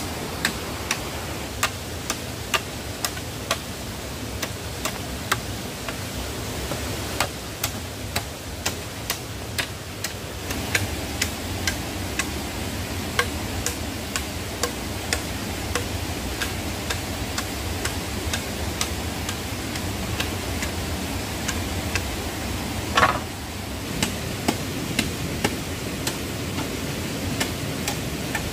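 Machete blade striking bamboo in light, evenly paced knocks, a little under two a second, with one louder crack a few seconds before the end. Underneath runs the steady rush of a stream.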